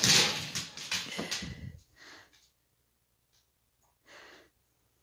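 A large dog moving about on a laminate floor, with a burst of scuffling and thumps in the first two seconds. Then come two short breathy huffs, the second about four seconds in.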